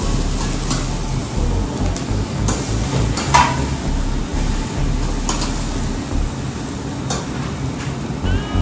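Scattered clinks and knocks of tableware, about six in all, one of them ringing briefly about three seconds in, over a steady low background rumble.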